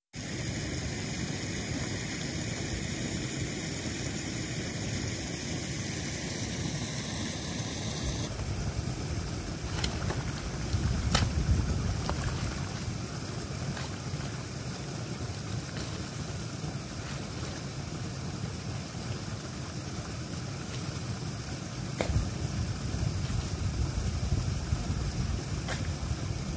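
Irrigation water running and splashing through a ditch, under a low rumble of wind on the microphone, with a few sharp knocks from a spade working in the wet soil.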